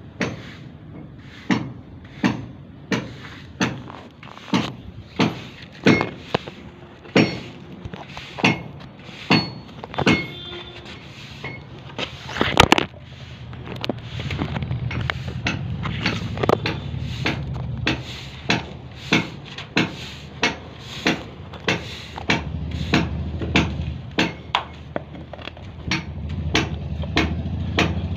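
Hammer blows struck at a steady pace, a little more than one a second, with one harder strike about halfway. A low rumble sits under the blows in the second half.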